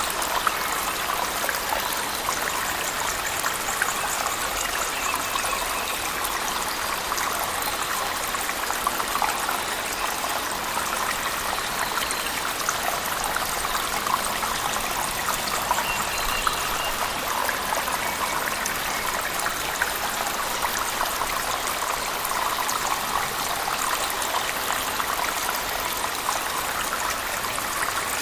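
Cave waterfall and heavy rain mixed into one steady rush of falling water, with many small splashes and drips scattered through it.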